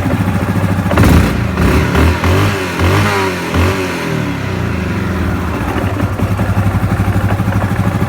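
Yamaha Grizzly 700 ATV's single-cylinder engine revved in several quick blips about a second in, then settling to a steady, pulsing idle. It carries a knock that the owner traces to the CVT (variator) side.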